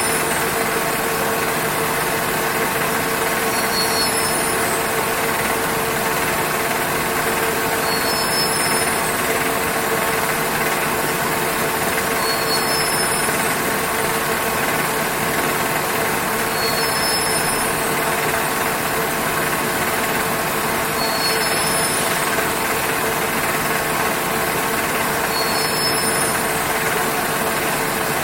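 Textile warping machine running steadily: a dense mechanical whir with a constant hum, and a faint high-pitched chirp that comes back about every four seconds.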